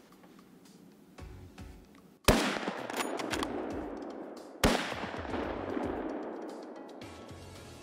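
Two hunting-rifle shots about two and a half seconds apart, each a sharp crack followed by a long echo that dies away slowly.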